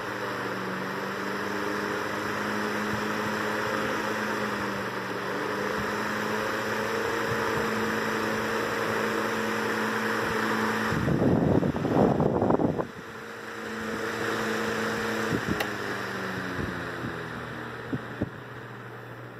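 Restored 1918 Emerson desk fan running: a steady electric motor hum with the rush of air from the blades. About twelve seconds in there is a loud rustle of handling, and a few seconds later a click, after which the hum falls in pitch as the fan slows down.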